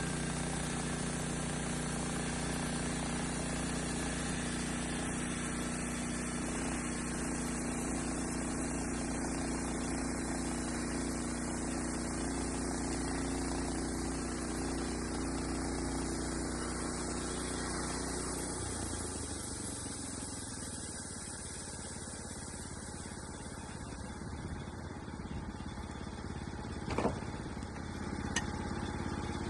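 Small engine running steadily, then dropping to a slower, quieter speed about two-thirds of the way through. A single sharp knock comes near the end.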